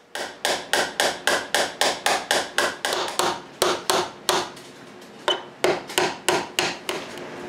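Small wooden-handled hammer tapping repeatedly on oak, quick, even blows about four a second, with a short pause a little past the middle.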